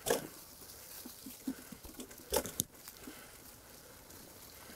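Riese & Müller Superdelite Mountain e-mountain bike rolling over a leaf-covered dirt trail, its tyres crunching through dry leaves. A few sharp knocks and rattles come from the bike over bumps, the loudest just at the start and a pair about two and a half seconds in.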